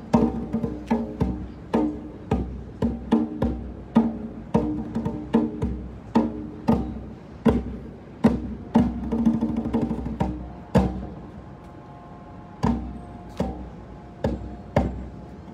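Hand drum played in a quick, steady beat of two or three strikes a second, each strike ringing briefly; the beat thins out to a few single strikes in the last few seconds.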